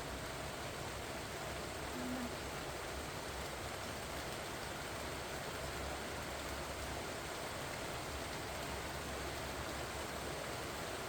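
Steady rain falling on pumpkin vine leaves, an even, unbroken patter with no let-up. A brief low tone sounds about two seconds in.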